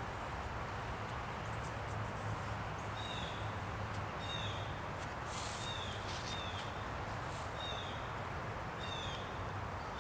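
A bird calling repeatedly, short falling chirps about once a second from about three seconds in, over a steady outdoor hiss and low hum.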